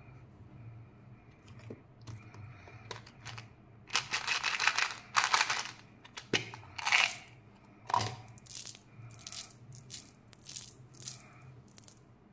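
A plastic chewing-gum tube being opened and shaken, its small gum pieces rattling out into a palm in a series of short shakes.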